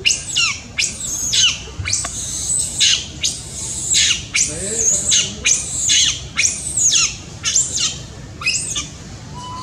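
Baby long-tailed macaque screaming over and over: shrill, loud cries that each fall sharply in pitch, nearly two a second. These are an infant's distress cries for its mother's care.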